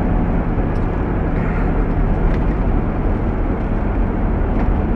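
Steady car engine and road noise heard from inside the cabin while driving, with a low hum that fades out about three seconds in.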